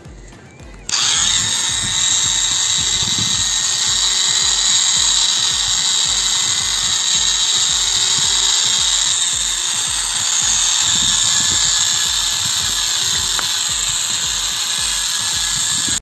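Small electric toy motor in a homemade matchbox backhoe loader, switched on about a second in and then running steadily with a high whine as it drives the wheels over concrete.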